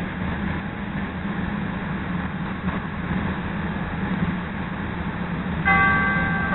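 A steady hum from a CTA Red Line rail car standing at the station with its doors open. Near the end, the first note of the two-tone door chime rings, the signal that the doors are about to close.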